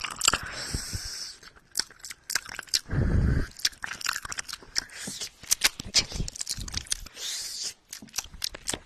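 Close-up ASMR mouth sounds made with the lips right on a microphone and a hand cupped around the mouth: a run of wet clicks and smacks. There are a couple of breathy stretches, and a low thump about three seconds in.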